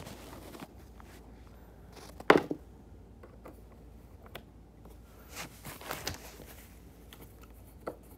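A sharp knock from handling the binding about two seconds in, then a few short hisses of aerosol silicone lubricant being sprayed into the snowboard binding's strap fitting.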